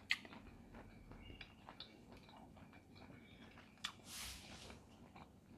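Faint chewing and small wet mouth clicks of a person eating, with a sharper click just after the start and a short breathy rush about four seconds in.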